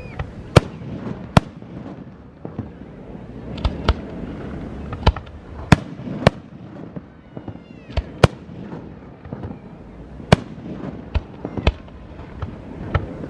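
Fireworks going off: sharp bangs at irregular intervals, some in quick pairs, with a brief whistle about halfway through.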